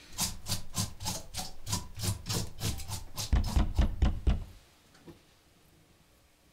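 Knife working rapidly on a wooden cutting board, a quick rasping back-and-forth at about four strokes a second, with heavier thumps near the end before it stops.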